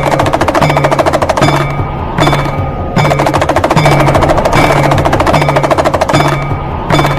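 Damru, the small hourglass-shaped pellet drum, rattled in fast continuous rolls of rapid strokes. The rolls break off briefly into short sparser gaps before starting again, over a deep low note that repeats under them.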